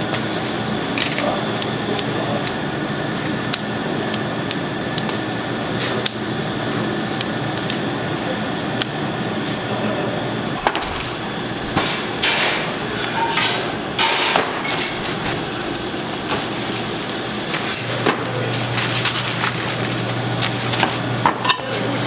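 Oak firewood cracking and knocking: sharp single cracks every few seconds over a steady noisy hum, with a low hum growing louder near the end.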